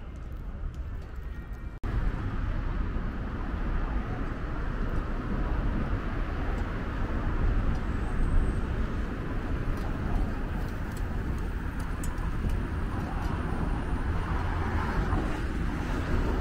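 Steady road traffic on a busy city street, cars running past with a low rumble. It starts with an abrupt jump in loudness about two seconds in, where a quieter street ambience cuts off.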